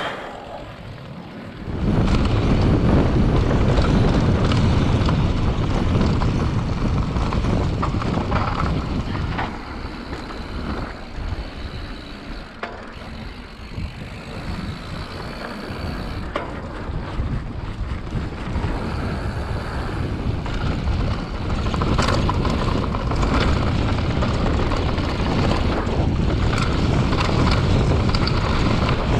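Wind rushing over a handlebar-mounted camera microphone, together with a mountain bike's knobby Maxxis tires rolling over a dirt trail and the bike rattling. The noise jumps up about two seconds in, eases in the middle and builds again later, with a few sharp knocks from bumps.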